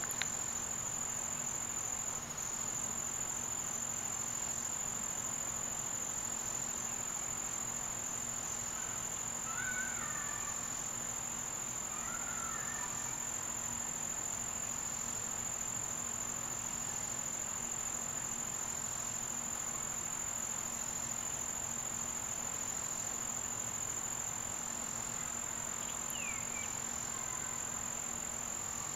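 Insects trilling in one steady, unbroken high note, with a few faint short chirps about ten and thirteen seconds in and again near the end.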